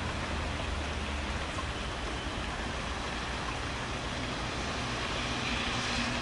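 Steady rain falling during a thunderstorm, with a low rumble in the first couple of seconds. Near the end, a passing vehicle's hum and tyre hiss rise over the rain.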